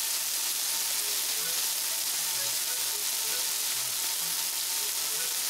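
Meat sizzling steadily on a hot grill plate.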